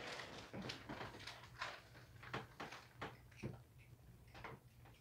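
Faint, irregular light knocks and rustles, spaced about half a second to a second apart.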